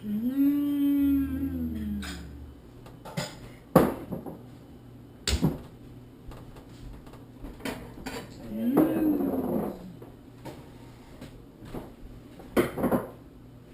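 Cutlery clinking against plates, a few sharp clinks spread out, with two long wordless vocal sounds, one at the start and one about nine seconds in.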